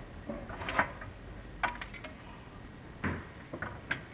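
Irregular clicks and knocks, about half a dozen of them, from a chimney inspection camera and its cable bumping against the flue liner as it is lowered down the flue.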